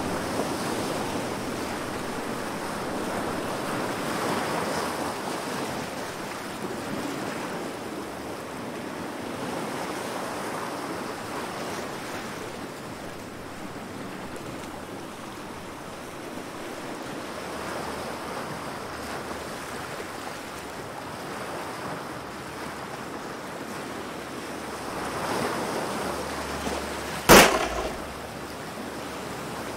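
Sound effect of waves hitting rocks hard: a steady rush of surf that swells and eases every few seconds. Near the end comes a single sharp gunshot sound effect, the loudest thing here.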